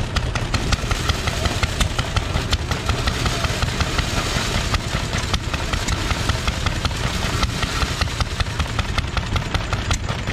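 Small antique stationary gas engine running with a fast, even firing beat. It is driving a belt-powered corn sheller as ear corn is fed in and shelled.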